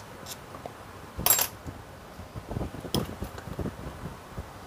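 Metal tools and parts being handled at a car starter motor: a loud metallic clatter about a second in, then a sharp click and a few soft knocks.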